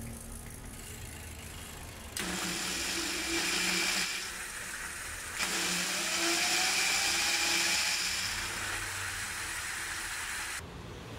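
Four small 775-size brushed DC motors, run on 24 V, driving a bicycle's rear wheel through the chain. A whirring with a high whine starts suddenly about two seconds in and eases off around four seconds. It comes back around five and a half seconds with a rising tone, then stops near the end.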